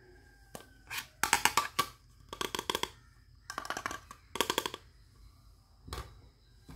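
Small plastic toy dishes handled and clattered together in four quick bursts of rapid clicking, each about half a second long, with a few single taps before and after.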